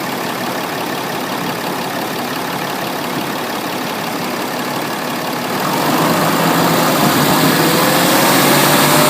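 A diesel engine idling, then about six seconds in it grows louder, its pitch climbing slowly as it is revved up.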